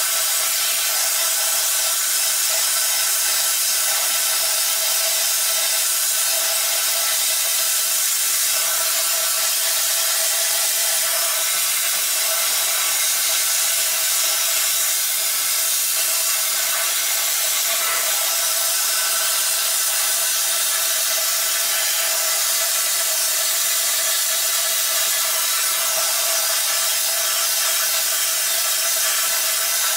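Wet blasting (vapor honing) cabinet running: the blast gun gives a loud, steady hiss as it sprays water-and-abrasive slurry onto a machined aluminium part, with a steady hum under it.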